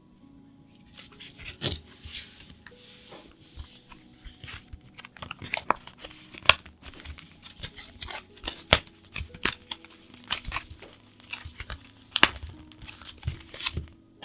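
Plastic packaging of a pack of card sleeves being torn open and crinkled by hand, in an irregular run of sharp crackles and rips.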